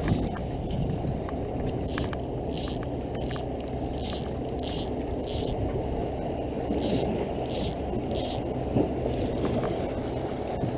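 Steady wind and surf noise, with runs of short high hissing zips, roughly one every half second, as yellow fly line is stripped in by hand through the rod guides of a 6-weight fly rod.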